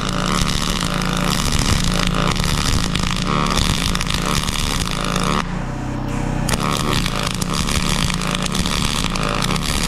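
YesWelder DP200 MIG welder arc running in pulse mode, a steady loud crackle and sizzle as wire feeds into the corner of steel angle iron, throwing a lot of spatter. The crackle thins briefly about halfway through, then picks back up.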